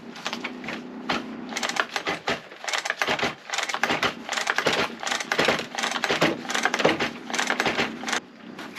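Two-stroke chainsaw's recoil starter pulled again and again, each pull a short run of rapid clicking as the engine turns over without starting. The owner blames the failure to start on a fuel mix with double the right amount of two-stroke oil.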